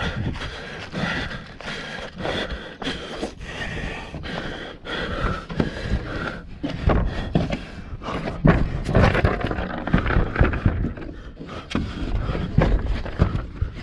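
A racer's hard panting breaths and scuffing, scraping footfalls, close on a chest-mounted camera.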